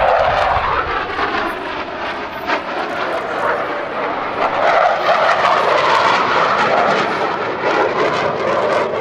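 Jet noise from Blue Angels F/A-18 Hornets, twin turbofan engines, passing in flight during an airshow display. A loud, continuous roar swells at the start and again midway, with a crackling edge.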